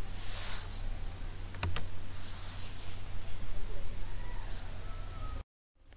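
Background room tone with a steady low hum, and an insect chirping in quick, evenly spaced high pulses. There is a single click a little before two seconds in, and the sound drops out completely for a moment near the end.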